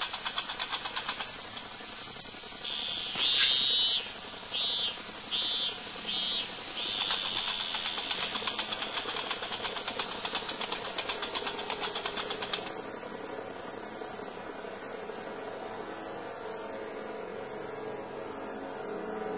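Insects chirring: a steady, very high hiss with fast fine ticking. About three seconds in come four short chirps, then a steadier trill at the same pitch. The ticking and the trill stop together about twelve seconds in.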